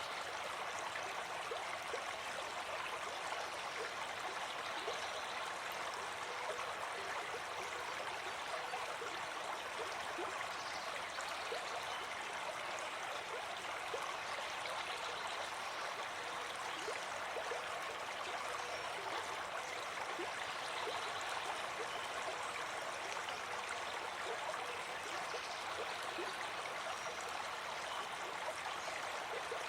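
Running water flowing steadily, an even rushing with small splashing flickers and no change in level.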